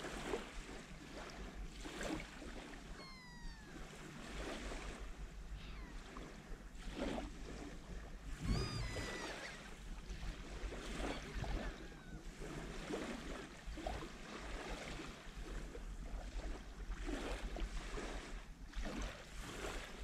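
Small waves on a calm sea lapping and washing onto the beach in a series of soft swells, over a low rumble of wind on the microphone.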